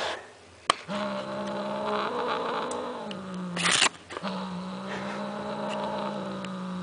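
Domestic tabby cat growling in long, low, steady drones while guarding an item held in its mouth, with one sharp hiss about three and a half seconds in between two growls. A single short click sounds just under a second in.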